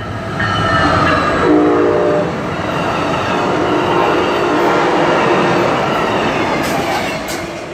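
Amtrak Cascades passenger train passing at speed close by, a steady rush of wheels and air that is loudest as the locomotive goes by. A short horn blast sounds about a second and a half in, and wheels click over rail joints near the end.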